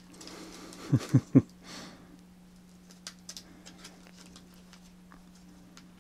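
The pop-up card of a children's picture book being folded flat by hand: paper and card rustling, with three quick thumps about a second in and faint paper clicks later. A steady low hum runs underneath.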